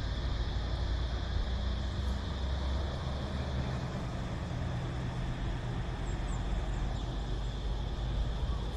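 Cicadas droning steadily in one high band, over a low rumble of wind on the microphone. A few faint, high bird chirps come about six seconds in.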